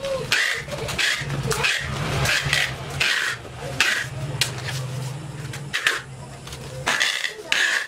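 Tape and plastic wrapping being pulled around a long package: a string of short rasping pulls, about two a second, with rustling plastic.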